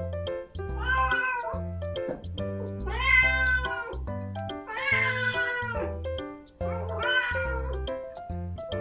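Bombay cat meowing four times, long drawn-out calls over background music: she is asking to be let into a room.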